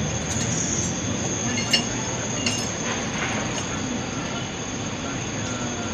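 Steady engine rumble and cabin noise inside a bus, with a thin, steady high-pitched whine. Two short clicks come a little under two seconds in and about two and a half seconds in.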